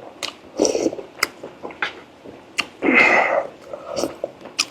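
Close-miked eating sounds of a person chewing braised pork leg: scattered sharp wet lip smacks and mouth clicks, with a longer, louder wet burst about three seconds in.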